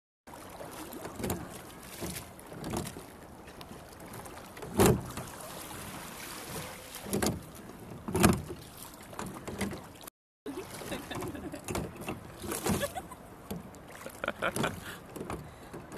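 A rowboat being rowed with a pair of oars: the oars knock and clunk in their rowlocks as each stroke is pulled. The two loudest knocks come about five and eight seconds in.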